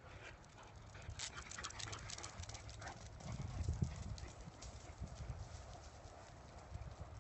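Dogs' claws and paws clicking and pattering on a concrete driveway as they run, a flurry of quick clicks in the first couple of seconds, thinning out after, over a steady low rumble.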